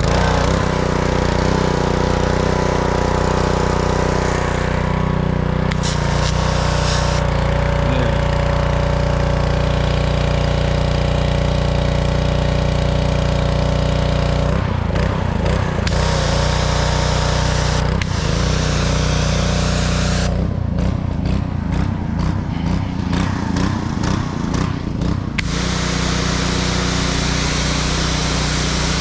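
Honda GCV160 single-cylinder engine on a Blackmax pressure washer running steadily at speed after a crank-no-start repair. Its note turns uneven twice for a few seconds, about halfway through and again a few seconds later, then settles back.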